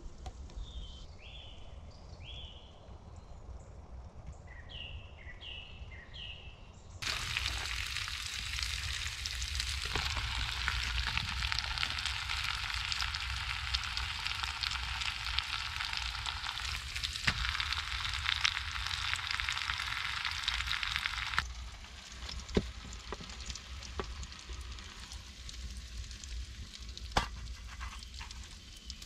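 Small birds chirp over quiet for the first seven seconds. Then food in a pan over a wood fire starts sizzling loudly and evenly. About 21 seconds in the sizzle drops away, leaving a few sharp clicks.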